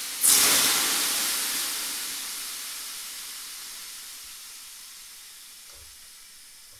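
Water ladled onto the hot stones of a sauna stove (löyly): a sudden hiss of steam just after the start that fades away slowly over several seconds.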